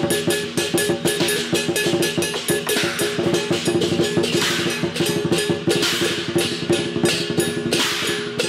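Lion and dragon dance percussion: a large drum beaten in rapid, driving strokes. From about three seconds in, cymbals crash about every second and a half.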